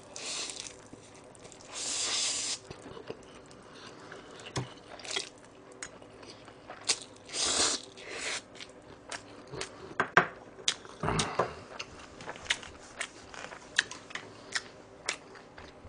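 Close-miked eating of cold spicy bibim-myeon noodles: a few short slurps near the start, about two seconds in and just before the middle, then steady wet chewing with many small mouth clicks.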